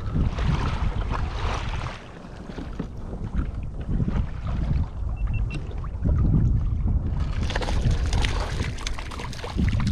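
Wind buffeting the microphone over water sloshing and rushing around a kayak in large ocean swells, the hiss of the water growing louder about seven seconds in.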